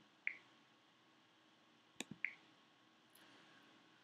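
Two computer mouse clicks about two seconds apart, each followed a moment later by a short high blip, over near silence.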